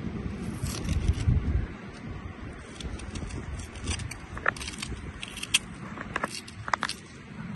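Scraping and a run of small clicks and knocks, a few of them ringing briefly, over a low rumble in the first two seconds.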